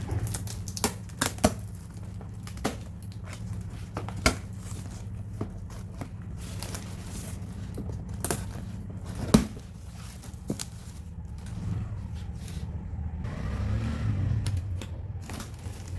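A cardboard box being opened and unpacked by hand: irregular sharp clicks, cracks and rustles of cardboard, tape and packing paper, the loudest crack about nine seconds in, over a steady low hum.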